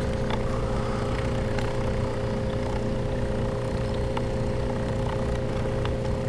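Recycled computer-printer stepper motors, driven by EasyDriver boards, running with a steady hum and a steady whine over it, with a few faint ticks.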